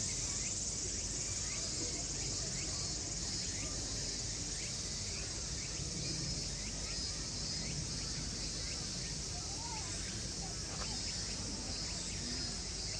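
Steady high-pitched chorus of insects, cricket-like, with faint short chirps scattered through it.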